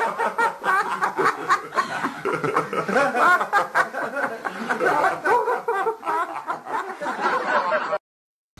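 Continuous giggling laughter, rapid and bouncing, which cuts off abruptly near the end.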